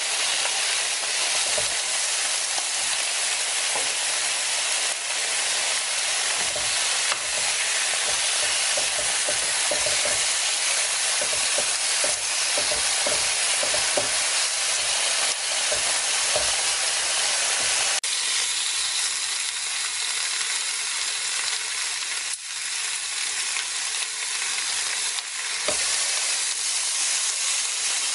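Pork pieces sizzling on a round slotted Korean barbecue grill plate: a steady hiss with small crackles and pops. The crackling thins out about two-thirds of the way through, while the hiss keeps on.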